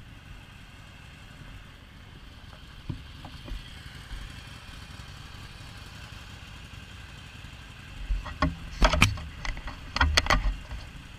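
Steady low background rumble, then a quick run of loud, sharp knocks and clicks close to the microphone from about eight seconds in, as gear is handled at the motorcycle.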